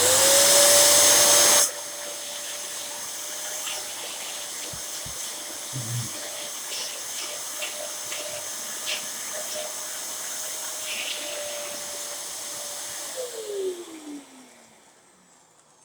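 Dyson DC07 bagless upright vacuum cleaner switched on: the motor spins up to a steady whine over rushing air, very loud for the first second and a half, then running evenly. About 13 seconds in it is switched off and the motor winds down, its whine falling in pitch as it fades.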